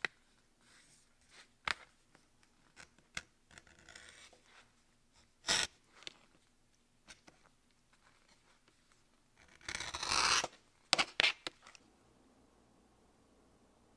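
Metal edge beveler shaving the edge of a leather strap: a few short scraping strokes with light clicks and taps between them, the longest and loudest about ten seconds in, then only a faint steady hiss near the end.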